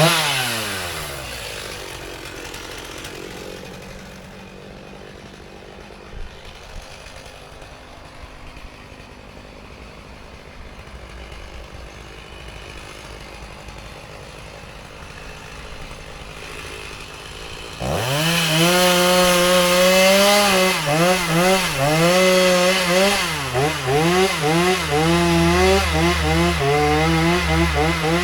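Chainsaw engine dropping from high revs to idle within the first couple of seconds, idling quietly for about sixteen seconds, then throttled up suddenly and run hard with its revs rising and dipping, before easing off near the end.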